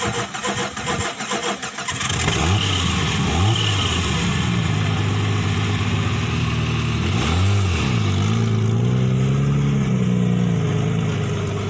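A car engine cranking on the starter, catching about two seconds in, then idling with a few quick revs.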